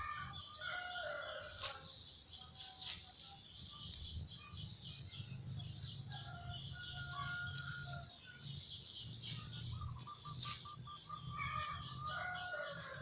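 Birds calling in short pitched phrases, with a quick run of repeated notes about ten seconds in, over scattered clicks.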